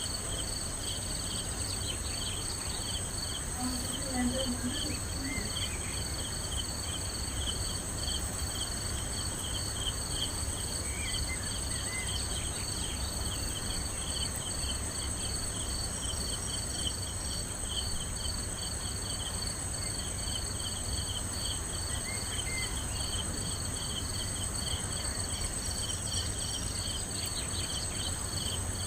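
Night insects, chiefly crickets: a steady high trill over rows of rhythmic, evenly repeating chirps, with a low steady rumble underneath.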